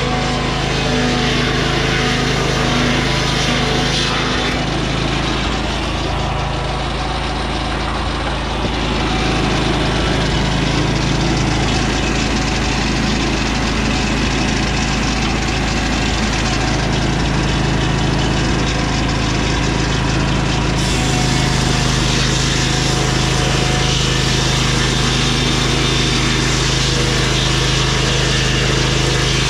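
Lucas Mill swing-blade sawmill's 18 hp Vanguard V-twin engine running steadily as the circular blade cuts lodgepole pine. The level eases a little briefly about a quarter of the way in, then holds steady.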